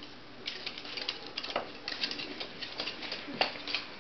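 Two dachshund puppies play-fighting, their claws clicking and pattering irregularly on a parquet floor.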